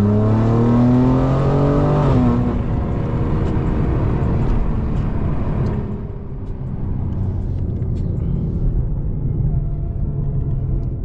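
BMW G80 M3's twin-turbo straight-six accelerating, heard from inside the cabin: the engine note climbs for about two seconds, then the revs drop. It settles into a steady low drone with road noise, a little quieter from about six seconds in.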